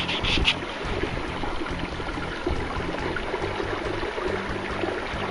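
Steady rush of water along a canoe's hull as it runs under way at full power, pushed by a 30-pound-thrust Minn Kota electric trolling motor, with a low hum underneath.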